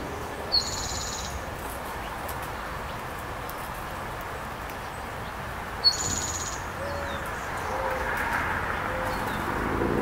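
A wild bird gives a sharp, high call twice, about five seconds apart, over steady outdoor background noise.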